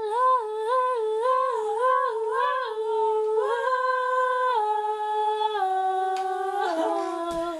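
A person humming a tune in a high voice, with short up-and-down notes for the first three seconds, then longer held notes stepping down in pitch.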